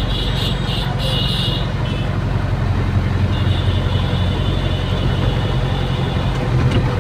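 Hydraulic excavator's diesel engine running steadily, heard from inside the cab as the boom swings the bucket. A higher whine comes in briefly near the start and again in the middle.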